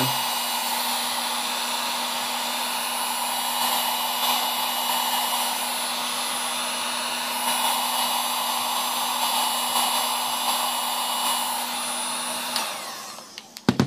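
Drill Master electric heat gun running, a steady blower rush with a constant hum, heating heat-shrink tubing over a soldered wire joint. Near the end it switches off and the blower winds down, followed by a sharp click.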